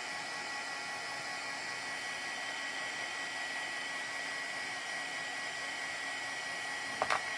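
A hand-held hair dryer running steadily with a thin high whine, blowing on freshly applied ink to dry it before heat setting. A couple of short clicks near the end.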